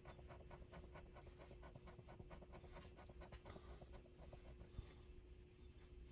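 Faint, rapid scratching strokes, about five a second, over a steady low hum; the strokes thin out about four and a half seconds in.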